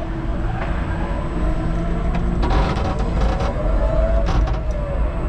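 A 5-ton electric forklift driving with a steady low rumble. From about halfway in, an electric motor whine rises and falls, with a few short rattles and clatters.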